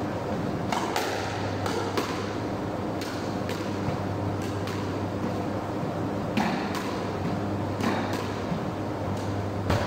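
Squash balls being struck, a dozen or so sharp knocks at irregular intervals, each ringing on in the court's echo, over a steady low hum.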